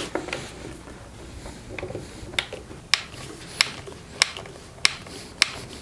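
Screwdriver turning a screw through a rubber foot into an end-grain cherry cutting board, giving a sharp click about every two thirds of a second from about two seconds in.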